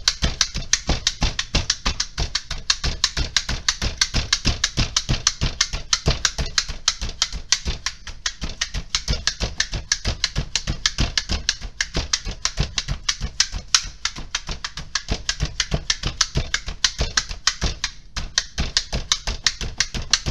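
Jaccard 48-blade spring-loaded meat tenderizer jabbed rapidly and repeatedly into a steak on a plastic cutting board: a fast, even run of clacking taps, about four or five a second, with a brief break near the end.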